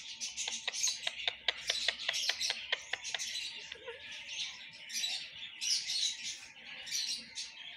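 Rose-ringed parakeet nibbling and crinkling a paper banknote with its beak: a quick run of sharp crackles and rustles that thins out after about three and a half seconds into softer rustling.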